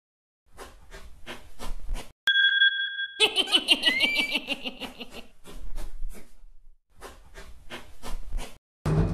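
Cartoon sound effects: a run of rapid rattling clicks, then a short steady electronic beep as the remote control is pressed. A high snickering laugh follows, then more rattling clicks.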